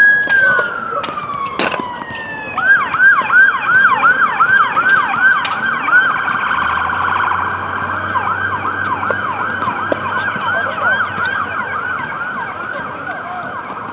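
Emergency vehicle siren: a long wail falling in pitch, then a fast yelp of repeated falling sweeps, about three a second, growing a little fainter toward the end. A single sharp knock a little under two seconds in.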